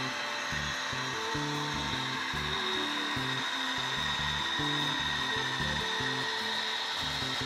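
Background music with a stepping bass line, over the steady whine and rolling noise of an HO-scale model freight train running: diesel locomotives pulling tank cars.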